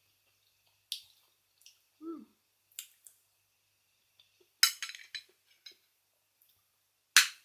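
Close-up sounds of eating raw oysters: scattered sharp clicks of shell and utensils, a short hummed 'mm' about two seconds in, a wet crackly slurp about halfway, and a loud sharp clack near the end.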